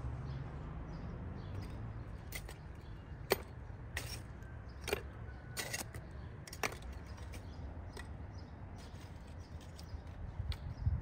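Outdoor ambience: a steady low rumble with about eight short, sharp ticks scattered through it.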